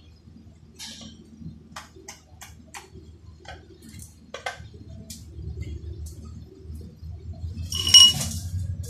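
Metal wrench working on transmission bolts: scattered short metallic clicks and clinks, then one loud ringing metal clank about eight seconds in, over a low steady hum.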